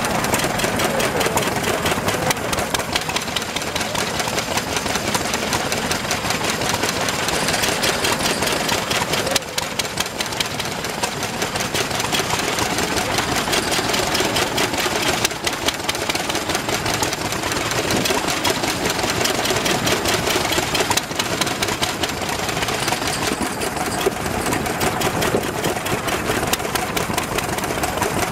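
Several vintage single-cylinder stationary engines with open flywheels running together, a continuous rapid clatter of firing and knocking.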